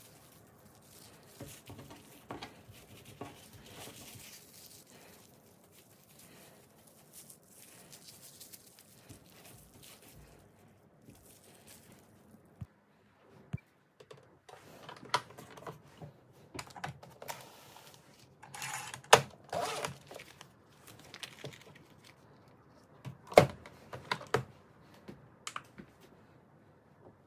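Cling film crinkling softly as it is unwrapped, then plastic rustles and sharp clicks as a countertop vacuum sealer is handled and a plastic bag is fed into it, with the loudest clicks and rustles in the last third.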